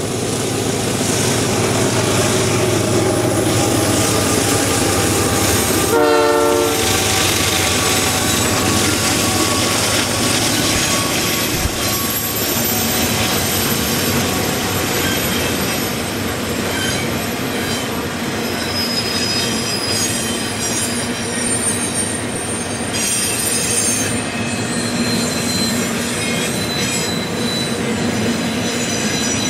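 Double-stack intermodal freight train rolling by with a steady rumble of cars on the rails. A short locomotive horn blast of about a second comes roughly six seconds in. From about twenty seconds on, the wheels give high, on-and-off squeals as the train works through the curve.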